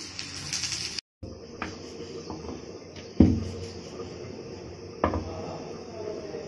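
Cauliflower frying in a kadai, sizzling and stirred with a metal spatula, for about a second. After a short break come a few dull knocks, the loudest about three seconds in and another about five seconds in.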